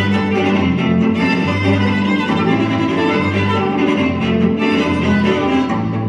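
Music led by bowed strings, with long held notes and a steady low bass line, playing without a break over a theatre's sound system for a stage dance number.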